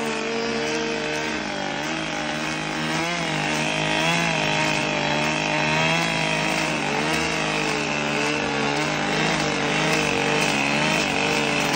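Two-stroke chainsaw engine driving a milling-cutter attachment along a log, running at high revs without a break, its pitch sagging and recovering as the cutter takes load.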